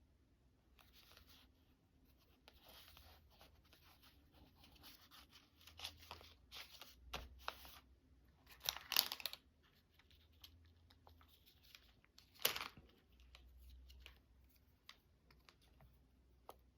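Washi tape being handled and torn by hand, with light paper rustling; the two loudest rips come about nine and twelve and a half seconds in.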